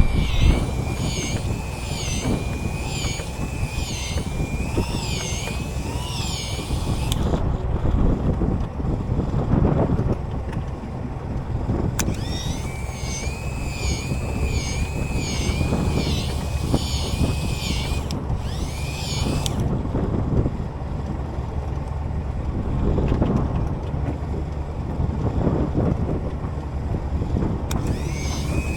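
Wind and engine rumble aboard a small fishing boat at sea. A wavering high-pitched whine comes and goes over it, running for several seconds at a time.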